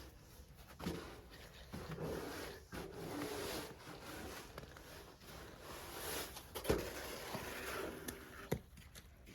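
Irregular footsteps on snow and slush, with some rustling in between.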